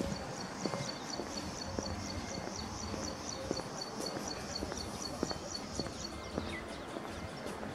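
A small bird chirping: a fast, even run of high notes, about five a second, that stops about six seconds in. Scattered footsteps on paving sound underneath.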